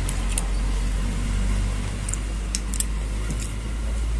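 Steady low background rumble with a faint hiss and a few faint, short light clicks.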